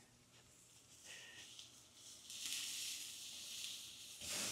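Steak sizzling on the hot grate of a charcoal kettle grill as tongs lift it off: a faint hiss that comes in about two seconds in and grows louder near the end.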